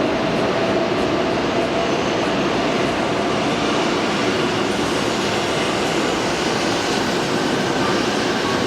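Nagano Shinkansen train running along the station platform: a steady rushing noise with a faint whine running through it.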